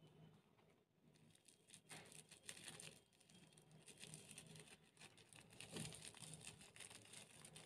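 Crunchy slime being worked by hand, with faint, dense crackling and crinkling that starts about two seconds in.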